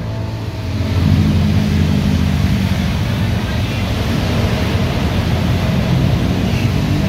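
A Transjakarta city bus approaching along the busway and drawing alongside, its engine hum growing louder about a second in, over the steady noise of motorcycles and cars passing on the adjacent road.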